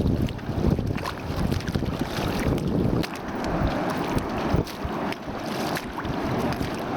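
Wind buffeting the microphone over the rush of sea surf, with scattered short splashy crackles.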